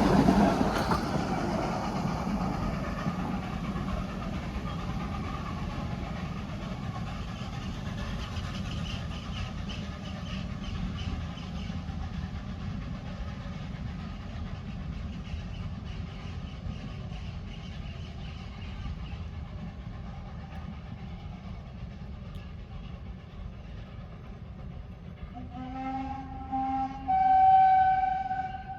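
Narrow-gauge Baldwin steam train running, its rumble loud at first and fading steadily as it draws away. Near the end the steam whistle gives two blasts, the second one longer.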